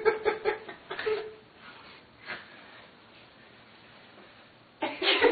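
A person chuckling, fading out in the first second or so, then quiet room tone, with a short burst of voice near the end.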